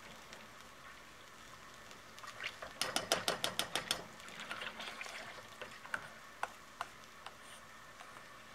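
Melted butter sizzling gently in a stainless steel pot as tomato paste is spooned in. A metal spoon clicks against the pot in a quick run of about ten clicks around three seconds in, then with scattered single clicks.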